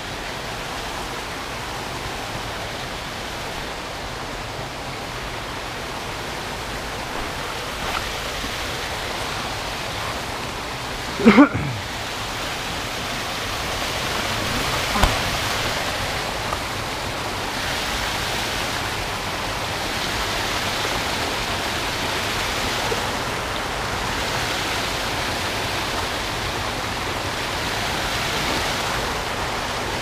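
Steady rushing of a mountain creek spilling over boulders in small cascades. About eleven seconds in, a brief, loud sound slides in pitch.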